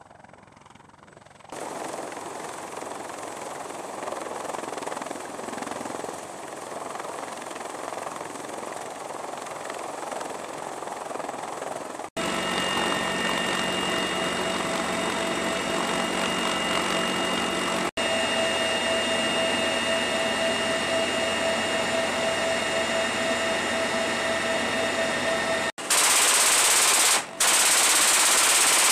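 CH-53E Super Stallion helicopter rotor and engine noise, then a steady whine inside the helicopter's cabin. Near the end, an M2 .50-calibre machine gun fires from the open rear ramp in two long rapid bursts.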